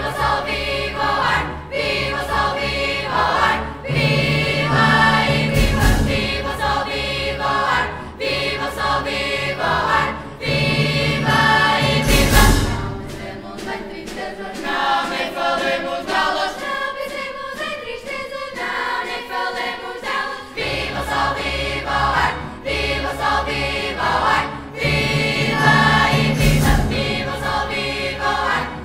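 Children's choir singing with a symphony orchestra, punctuated by three loud percussion strikes, the middle one ringing on.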